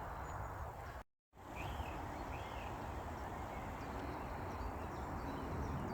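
Outdoor countryside ambience: a steady low rushing noise, with two short arching bird chirps a little after a second and a half in and a few fainter high chirps. The sound drops out completely for a moment about a second in.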